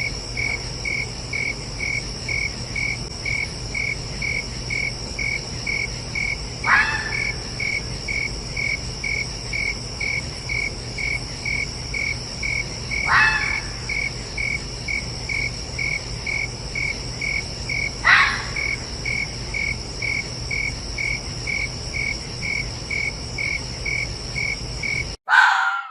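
Crickets chirping in a steady pulsing rhythm, about three pulses a second, while a fox gives three short barks several seconds apart, each sliding down in pitch. Near the end there is one more brief call, then the recording cuts off.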